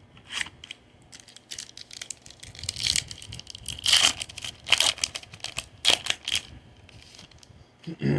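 Foil wrapper of a Topps Series 1 baseball card pack crinkling and tearing as it is opened by hand, a run of sharp crackles.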